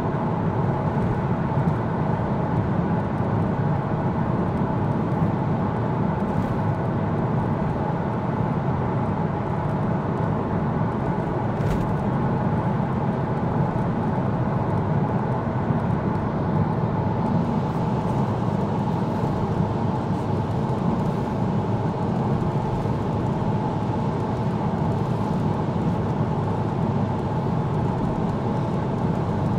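Steady road and engine noise inside a car's cabin as it cruises along a dual carriageway: a constant low tyre rumble with no change in pace.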